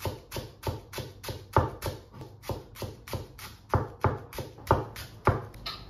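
Kitchen knife chopping chives finely on a plastic cutting board, the blade striking the board in an even rhythm of about three chops a second; the chopping stops near the end.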